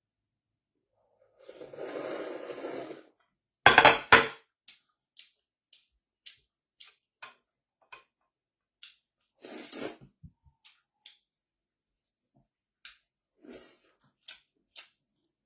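Close-up eating sounds: crunching bites and chewing, with many small clicks in between. A loud clatter comes about four seconds in.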